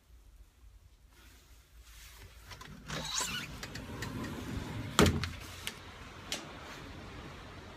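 Stateroom sliding glass balcony door being slid open, with a sharp knock about five seconds in and a couple of lighter clicks after it. Once the door is open, a steady rush of wind and sea comes in.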